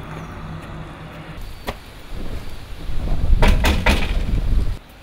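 A quick run of knocks on a metal security screen door, about three and a half seconds in, over a low rumble that cuts off suddenly near the end.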